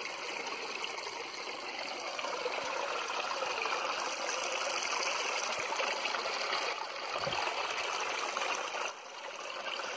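A small muddy stream, newly formed by rain, running and trickling over rocks in a little cascade: a steady sound of flowing water.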